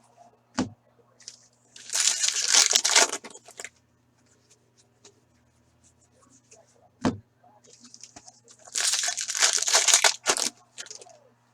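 Foil wrappers of 15-16 Upper Deck Series 1 hockey card packs being torn open and crinkled, in two bursts of about two seconds each. Two single sharp knocks fall in between.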